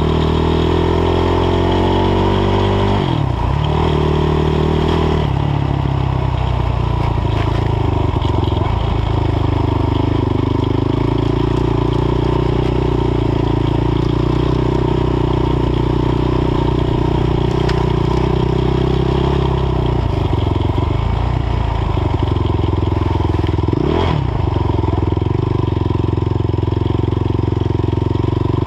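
Sport ATV's single engine running under throttle on a rough trail, revs climbing over the first few seconds, falling off sharply about three seconds in, then holding and dipping briefly again near the end.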